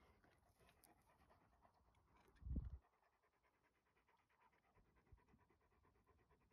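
Faint panting of Akbash dogs. A brief low thump about two and a half seconds in is the loudest sound.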